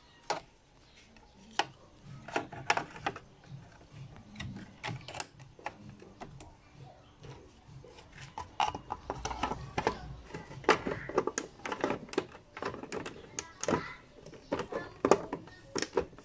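Irregular plastic clicks and knocks as the Ford Everest side mirror's turn-signal lamp and mirror cover are fitted and pressed back onto their clips, getting busier in the second half.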